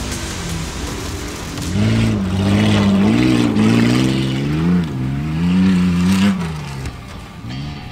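Tough truck's engine revving hard several times, pitch climbing and falling with each push of the throttle, then dropping away near the end.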